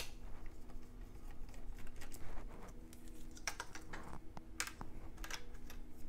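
Scattered light clicks and taps of small metal parts being handled as the heatsink is unscrewed and lifted off a MacBook Pro logic board, over a faint steady hum.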